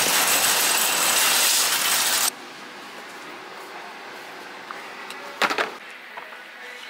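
Metal shopping cart rolling across an asphalt parking lot: a loud, steady rattling hiss that cuts off suddenly about two seconds in. Then a quiet store background with a few sharp clicks near the middle.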